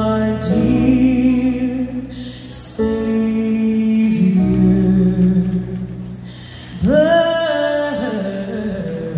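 Live music: a solo singer over sustained instrumental accompaniment, slow held notes, with the voice swelling in on a rising note about seven seconds in.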